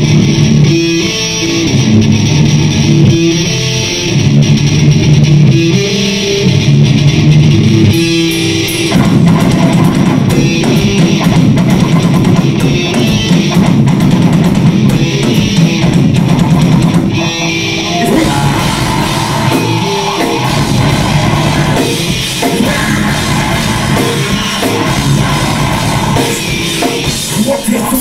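Live rock band playing a song, with electric guitars and a drum kit. The arrangement gets fuller and busier about nine seconds in and changes again near eighteen seconds.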